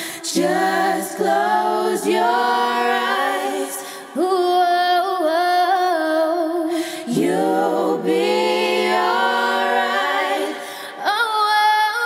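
Girls' voices singing a cappella in close harmony, wordless sustained phrases of a few seconds each with no instruments.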